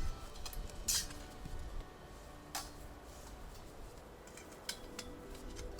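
Scattered light clicks and clinks of small hard objects being handled, a handful of separate taps, the loudest about a second in.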